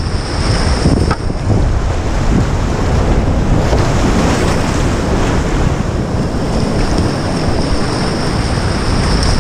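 Loud rushing of a whitewater rapid as a kayak runs down through it, with white water churning and splashing around the bow.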